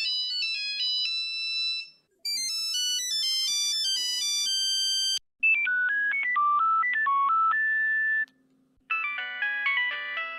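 A run of Nokia mobile phone ringtones, short electronic melodies played one after another with brief silences between them. The last one is fuller, with several notes sounding at once.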